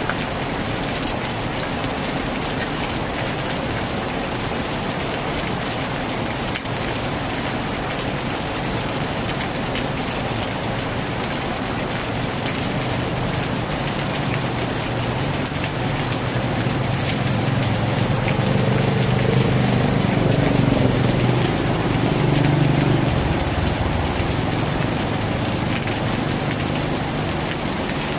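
Heavy rain falling steadily. About halfway through, a motor vehicle's engine passes by: it grows louder, is loudest a few seconds later, and fades again near the end.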